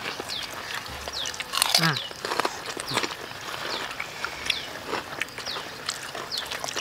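Several people eating cooked snails and tofu with their fingers: chewing, lip-smacking and sucking at fingers, with small clicks and crunches. Short falling chirps repeat in the background.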